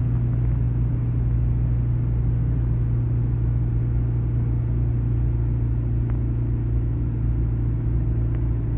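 Steady low drone of a car's engine and road noise heard from inside the cabin while driving at an even speed.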